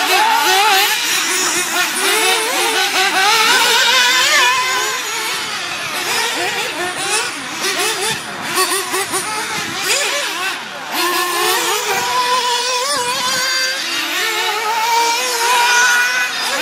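Several nitro RC buggy engines racing at once, their overlapping engine notes constantly rising and falling as the cars throttle up and brake around the track.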